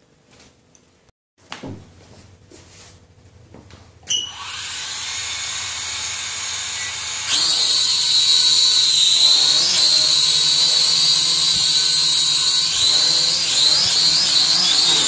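SG106 toy quadcopter's motors and propellers spinning up with a sudden high whine about four seconds in, after a few faint knocks. The whine jumps louder a few seconds later as the drone lifts off, and its pitch wavers as it hovers. It is flying properly now that its propellers are fitted in the correct alternating A/B arrangement.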